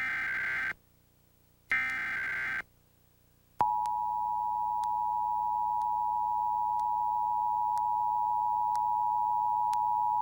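Emergency Alert System tones: the end of one SAME digital header burst and then another, each about a second of harsh data warble with a short gap between. About three and a half seconds in, the two-tone attention signal starts: a steady tone of two pitches, 853 and 960 Hz, sounding together and holding on. Here the alert signals a tornado warning.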